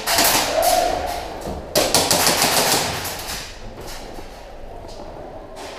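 Airsoft guns firing in rapid strings of shots. The heaviest volley comes about two seconds in and dies away about a second and a half later, with a lone shot near the end.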